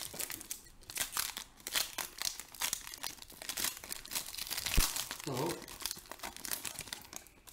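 Foil wrapper of a basketball trading-card pack being torn open and crinkled in the hands, a dense run of irregular crackles. There is a single low bump just before five seconds in.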